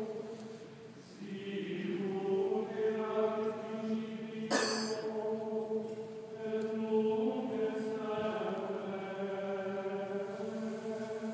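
Voices singing a slow chant at mass in a large church, with long held notes and a short pause between phrases about a second in. A single sharp knock comes about four and a half seconds in.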